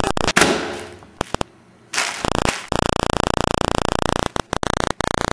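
A sealed air packing pillow bursts with one loud pop about half a second in, the rush of air fading away. From about two seconds a loud, harsh steady buzz with stuttering cut-outs takes over: damage noise from the wrinkled videotape.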